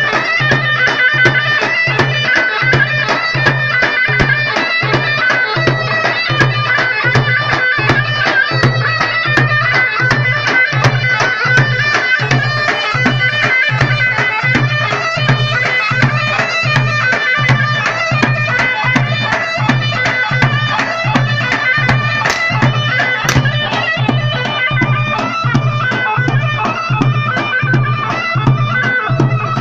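Tunisian folk music: a loud, nasal reed wind instrument plays a continuous melody over a steady, even drumbeat.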